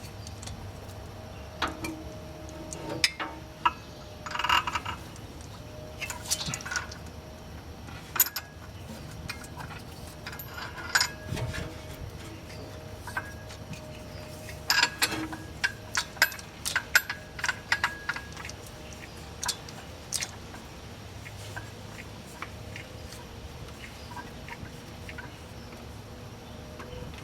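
Hand tools and small metal parts clinking and tapping now and then, with a faint steady hum underneath.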